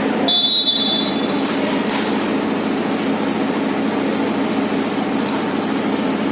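A referee's whistle blows once, for about a second, just after the start, signalling the serve. A steady low din of the court's surroundings runs under it.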